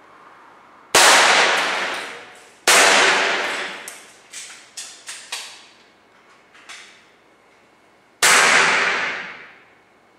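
Three sharp shots from high-powered pre-charged pneumatic air rifles, about a second in, near the three-second mark and near the end, each ringing out with a long decaying echo in the garage. Between them come several smaller clinks and clatters, typical of pellet hits and falling debris on the junk targets.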